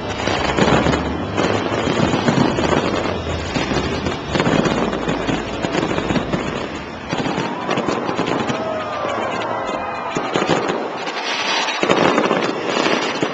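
Fireworks exploding overhead: dense banging and crackling with a low rumble for about seven seconds, then a thinner stretch, then another burst of crackling near the end. Crowd voices are mixed in.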